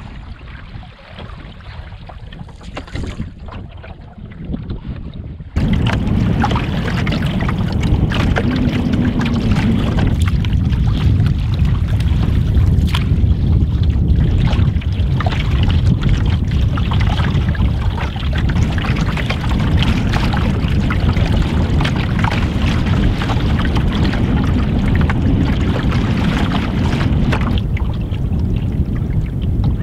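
Canoe being paddled on open estuary water: a few seconds of quieter paddle strokes and water, then a sudden change to a loud, steady rumble of wind on the microphone over water splashing against the canoe.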